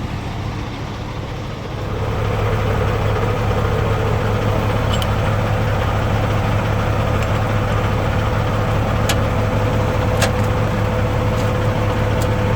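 Semi truck's diesel engine idling steadily, getting louder about two seconds in, with a few sharp clicks over it.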